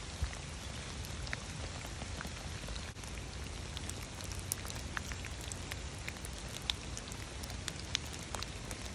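Steady rain falling on wet grass, leaves and a puddled path, a constant hiss with scattered sharp raindrop ticks close by.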